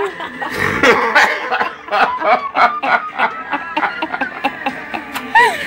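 People laughing, a long run of short breathy bursts of laughter.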